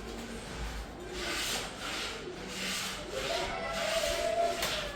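A metal trimmer base plate being fitted onto a wood trimmer, rubbing and scraping against the trimmer body in repeated strokes about once a second.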